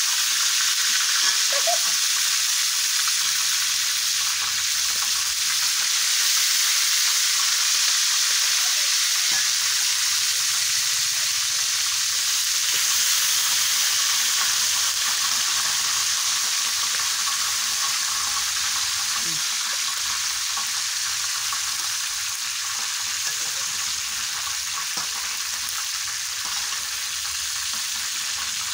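Small whole frogs frying in hot oil in an aluminium wok: a steady, dense sizzle and crackle of frying, easing slightly in the last third.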